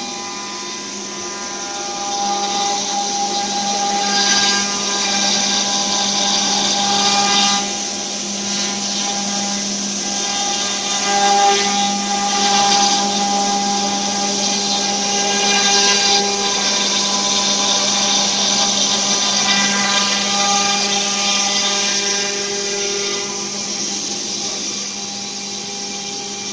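CNC router's electric spindle whining steadily as its bit carves a panel pattern into a wooden board. The cutting noise swells a couple of seconds in, then rises and falls as the tool moves through the wood.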